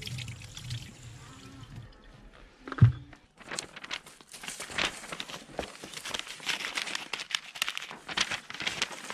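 Water trickling, then a single heavy thump about three seconds in, followed by a rapid, irregular crinkling and crackling.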